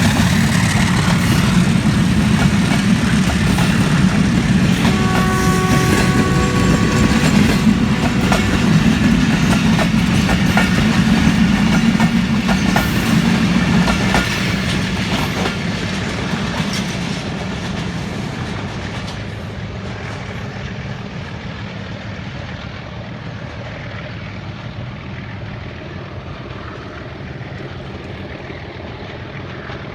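Passenger train led by a Hitachi diesel locomotive running through the station, with wheels clacking over rail joints and a heavy rumble. A multi-note horn sounds for about three seconds around five seconds in. The train noise fades steadily over the second half as it moves away.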